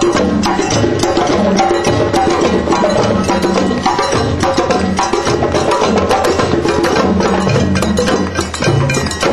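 Music with busy percussion: many sharp clicks and drum beats over pitched notes.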